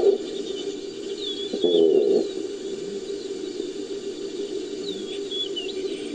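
Designed gazelle creature calls layered from gazelle and wildebeest recordings: a brief call at the very start and a longer one about two seconds in, each with falling pitch. Under them runs a steady droning nature ambience with short bird chirps twice.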